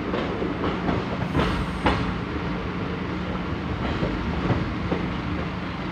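Indian Railways train running along the track, heard from on board: a steady rumble of the wheels with a low hum and irregular sharp clacks as the wheels pass over rail joints.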